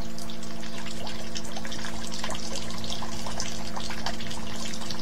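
Running water trickling and splashing steadily, over a low steady hum.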